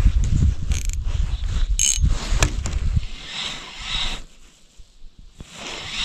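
Spinning reel being cranked to retrieve a wobbler, its gears whirring in stretches. A low rumble fills the first half.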